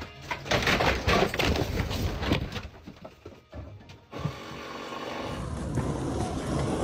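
Irregular knocking and cracking as wall boards are pulled away around plumbing pipes, turning about four seconds in to a steady hiss of spray. Near the end this gives way to the rumble of skateboard wheels rolling on concrete.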